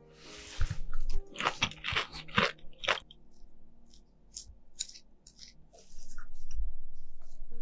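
Close-up crunching and crumbling of banana bread being broken apart with a fork, in a quick run of crackles. Sparser small scrapes follow as a knife spreads butter on the slice. Near the end a fork pressing through the slice onto the plate gives a low, duller sound.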